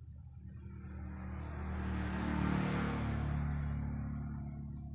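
A motor vehicle passing by: engine hum and road noise swell to a peak about halfway through, then fade away.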